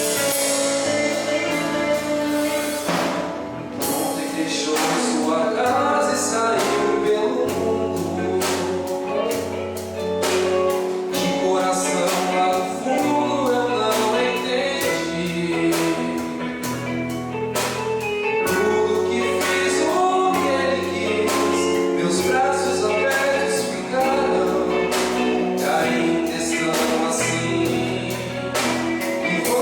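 Gospel worship song with singing, backed by drum kit and bass, with a steady beat throughout.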